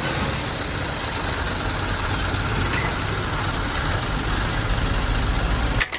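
A truck engine running steadily with a low rumble, cutting off abruptly near the end.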